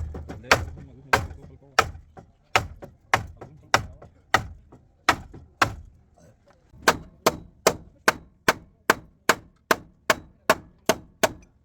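Hammer blows denting out damaged car body panels, struck at an even pace of about one every half second, a short pause about six seconds in, then a quicker run of strikes.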